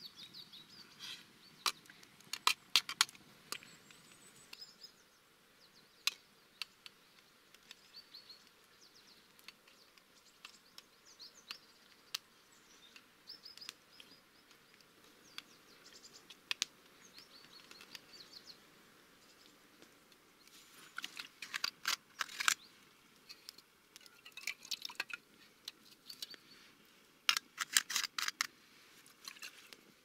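Sharp clicks and crinkles as a peel-off foil lid is pulled from a tin can, then small birds chirping. In the second half a metal spoon clicks and scrapes against the inside of the tin can in short bursts.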